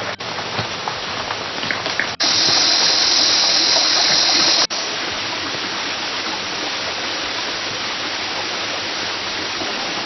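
Steady rush of a mountain stream and waterfall, a constant hiss of falling water. It drops out briefly at a few cuts and is louder and hissier from about two seconds in to nearly five seconds.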